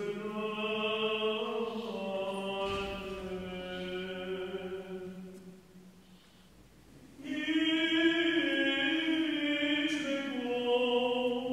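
A single male voice chanting the Orthodox Apostle (Epistle) reading in the first tone, glas I of Byzantine chant, on long held notes. It breaks off about five and a half seconds in and comes back louder about seven seconds in.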